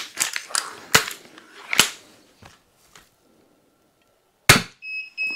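Steambow Stinger II pistol crossbow with a 120 lb limb: a few sharp mechanical clacks as it is cocked and loaded, then, about four and a half seconds in, a single loud snap as the bolt is shot. Right after it come two short high electronic beeps, the chronograph registering the bolt's speed.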